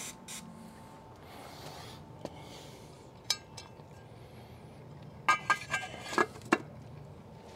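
Two short hisses of an aerosol rust-inhibitor spray at the start. Then come sharp metallic clinks with a brief ring: one about three seconds in, and a quick run of about six between five and six and a half seconds in. They come as the pool pump motor's back end cover and its screws are fitted.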